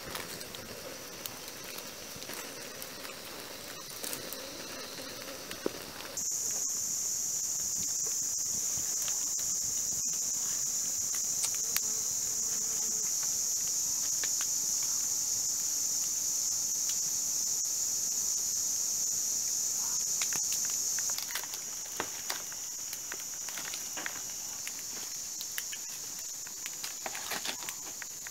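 Steady high-pitched chorus of rainforest insects, louder from about six seconds in and a little softer over the last third. Scattered small clicks and crackles run over it, thickest near the end.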